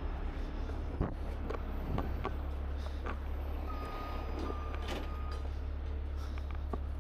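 Heavy diesel truck engine running at a steady idle, a low drone, with scattered knocks and clicks, the sharpest about a second in. A single steady high beep lasts over a second, about four seconds in.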